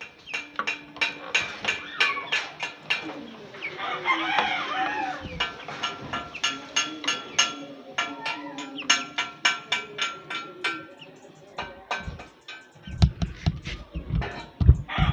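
A rooster crowing, once about four seconds in and again at the end. Behind it a steady run of sharp clicks, a few a second, as screws are driven in, and a few dull low thumps near the end.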